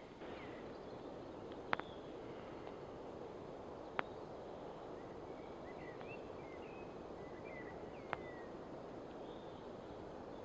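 Log campfire burning: three sharp pops of the burning wood over a steady rushing background, with a few faint bird chirps near the middle.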